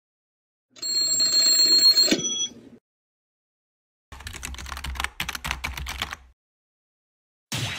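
Cartoon sound effects. First comes a two-second burst of high ringing tones that ends in a sharp hit. Then comes a rapid rattling alarm-clock ring lasting about two seconds, and a single ding near the end.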